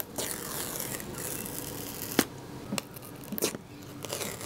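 Paper pull-tab seal strip being torn off an iPhone 14 Pro Max box: a scratchy tearing noise, then a few sharp clicks of the box being handled, and more tearing near the end.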